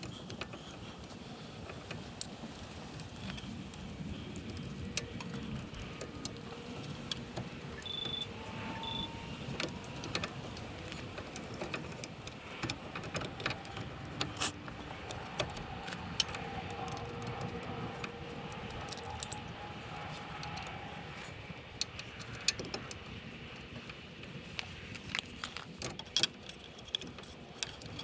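Scattered light metallic clinks and rattles of hand tools and brake parts being handled and fitted back on during a front brake pad change.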